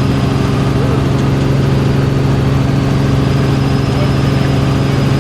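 Helicopter engine and rotor noise heard from inside the cabin: a loud, steady drone with a faint high whine above it.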